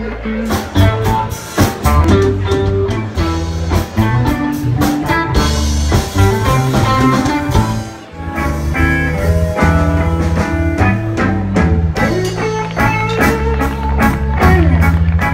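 Live blues band playing: electric guitars picking lead lines over an electric bass line and a drum kit keeping time. The level drops briefly about halfway through.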